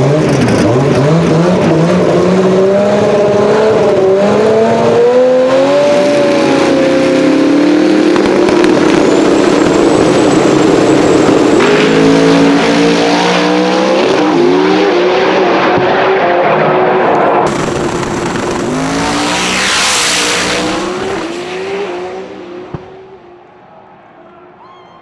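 Two drag-racing cars, one of them a twin-turbo Dodge Challenger Hellcat with a 528 cubic inch billet Hemi, revving at the starting line, then launching hard and accelerating away down the track. Their engine sound fades into the distance over the last few seconds.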